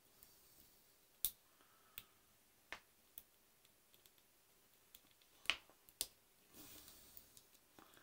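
Small plastic model-kit parts being handled and fitted by hand, giving half a dozen sharp clicks among fainter ticks, with a brief rustle near the end.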